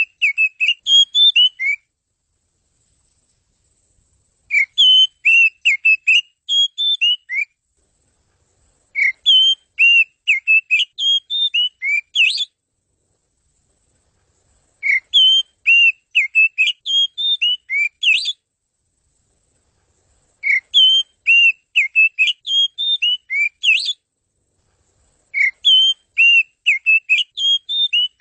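Oriental magpie-robin (kacer) song: six phrases of quick, clear whistled notes, each phrase about three seconds long, repeated every five to six seconds with silence between.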